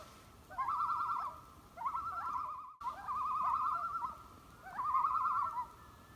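A bird giving a loud wavering, quavering call, repeated four times about a second apart.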